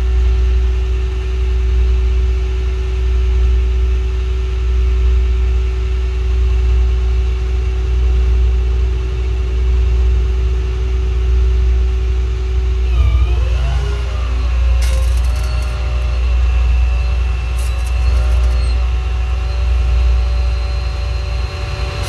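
An engine running steadily with a low rumble; a little past halfway its tone dips and wavers as if the load changes. A few short spells of crackle come over it in the second half, from stick welding on the steel door.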